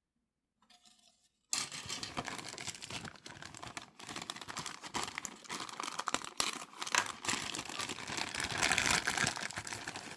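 Plastic packaging of model-kit parts crinkling and rustling as it is handled, starting suddenly about a second and a half in and carrying on without a break.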